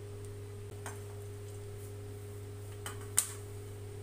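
A steady low hum with a few faint clicks, then one sharper tap about three seconds in as a steel plate of grated coconut is tipped against the rim of a steel kadhai.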